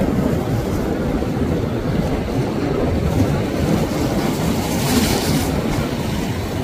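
Surf washing against rock jetty boulders, with wind buffeting the microphone as a steady low rumble. A brief hiss of splashing water comes about five seconds in.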